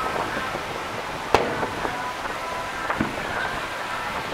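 Aerial firework shells: one sharp, loud bang about a second and a half in and a fainter bang near three seconds, over a steady background hiss.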